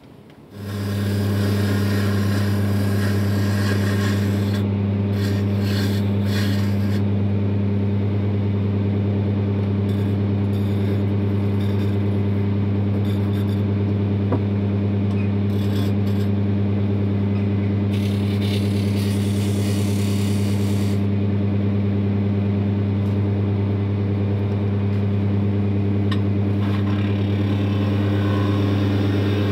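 Wood lathe switched on about half a second in, then running with a steady low motor hum, while a turning chisel cuts the spinning wooden handle blank in several spells of scraping.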